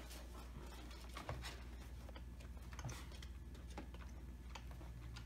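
Faint chewing and mouth clicks of children eating candy, with a few soft scattered clicks over a steady low room hum.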